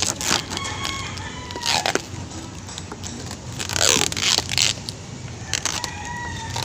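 A rooster crowing, once about half a second in and again near the end, over a steady low hum, with two loud rushing noise bursts in between.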